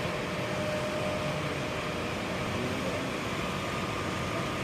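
Furnace blower running with a steady rushing hum and a faint steady tone.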